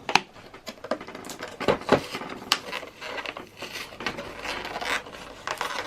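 Packaging of a trading-card collection box being handled and pried at to open it: irregular taps, clicks and short scrapes of cardboard and plastic.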